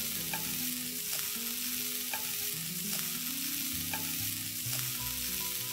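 Chopped onions, garlic, ginger and green chilli sizzling in hot oil in a pan while being stirred with a wooden spatula, with a few light clicks of the spatula against the pan.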